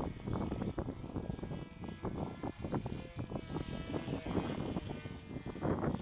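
Strong wind buffeting the microphone in gusts, over the faint steady whine of a Cheburator RC flying wing's electric motor and propeller.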